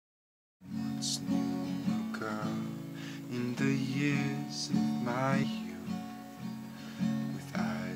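Acoustic guitar strummed, playing a chord intro that starts about half a second in.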